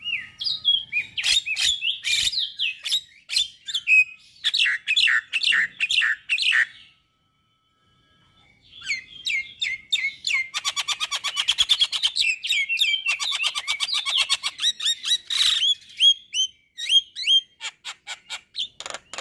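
A male Javan myna singing a loud, varied run of chattering and whistled phrases. It breaks off for about two seconds near the middle, then gives a fast rattling string of repeated notes and more whistles.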